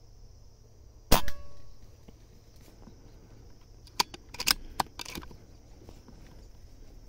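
A single shot from a Beeman air rifle firing a slug about a second in: one sharp crack with a short ringing tail. A few seconds later, a quick run of several smaller sharp clicks and knocks.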